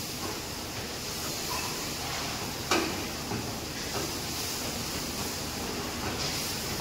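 Steady hiss of food frying in a wok over a gas burner, with one sharp knock of a utensil against the pan nearly three seconds in and a few lighter taps later.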